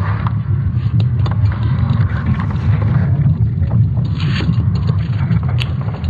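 Sonified Earth's magnetic field signals from ESA's Swarm satellites: a dense, steady low rumble with scattered crackles.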